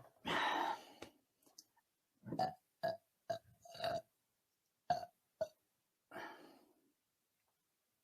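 A woman belching: one longer, louder burp just after the start, then a run of about six short burps, and a last softer, longer one a little after six seconds.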